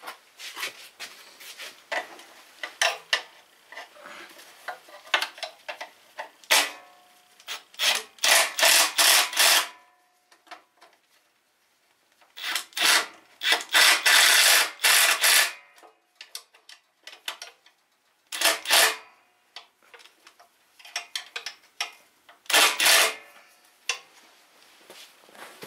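Cordless drill run in four bursts of one to three seconds against the metal of a garden tractor's differential housing, with small clicks and knocks of handling between the bursts.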